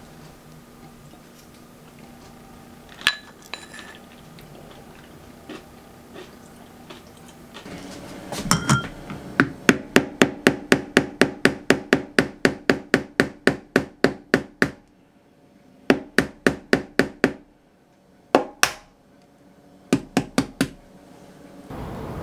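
Eggs being beaten in a glass measuring jug: quick sharp clicks against the glass, about four or five a second, in one long run of several seconds and then a few shorter runs with pauses between.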